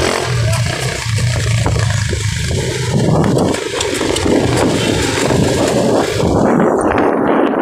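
Engine of a moving road vehicle running steadily with wind and road noise; about six seconds in, the low engine hum gives way to a broad rushing of wind and wet road.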